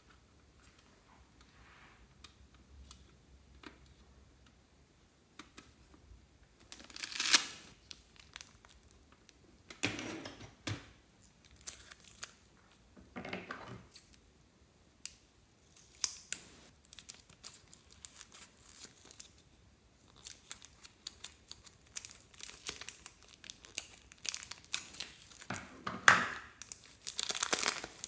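Plastic zip-lock bag crinkling and rustling, first in scattered short bursts, then in dense crackling over the last several seconds as a lump of soft clay is peeled out of it.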